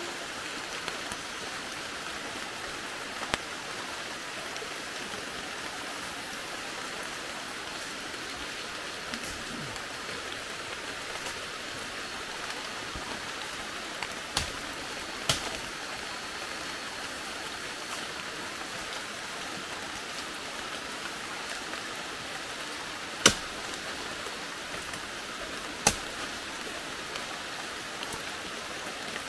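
Steady rain pattering on the rainforest, with a few sharp knocks of a machete striking a wet fallen log; the two loudest come near the end.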